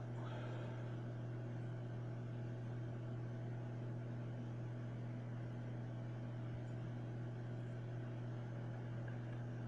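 Microwave oven running: a steady, even hum.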